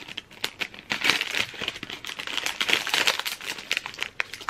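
Plastic ice cream wrappers crinkling and crackling as they are pulled open by hand: an orange outer wrapper and a gold metallic inner wrapper around a Magnum ice cream bar.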